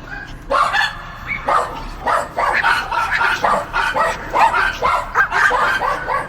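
Dogs barking: a few spaced, high-pitched barks, then a fast, overlapping run of barks and yips from about two seconds in.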